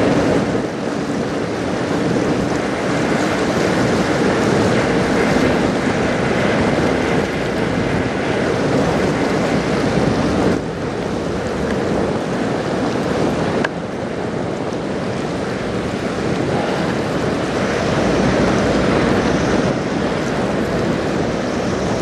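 Steady rush of water from the passing bulk carrier CSL Welland, with water pouring from outlets in its hull side and wind on the microphone. A low steady hum from the ship sits under it in the first few seconds.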